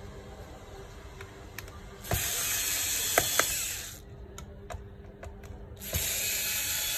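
Small electric screwdriver whirring in two bursts of about two seconds each, backing screws out of a laptop, with light clicks of the bit and screws in between.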